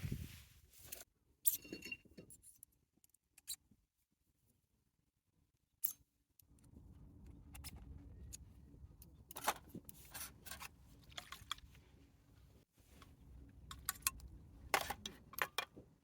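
Light clinks and rattles of small hard objects being handled, in short irregular clusters, with stretches of dead silence between them.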